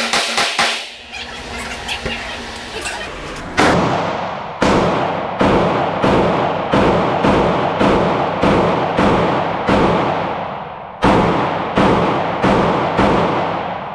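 Glock 48 9mm pistol firing a long string of shots, about two a second, each report with a ringing echo tail, with a brief pause before the last few shots. A quick cluster of sharp reports comes in the first second.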